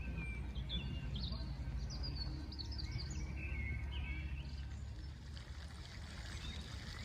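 Small birds chirping and twittering in quick, short calls, thinning out after about five seconds, over a steady low outdoor rumble.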